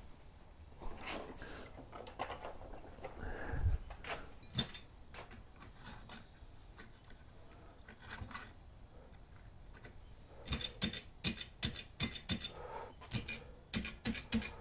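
Light bulbs being screwed into lamp sockets with faint rubbing and handling noise, then a quick run of sharp metallic clicks and clinks in the second half as the new pull-chain socket switch is pulled and its bead chain jingles. The lamp lights, showing the replaced switch works.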